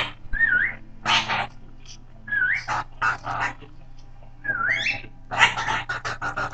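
Goffin cockatoo babbling in its own talk-like chatter: harsh, scratchy bursts broken by three short wavering whistles, then a fast run of chatter near the end.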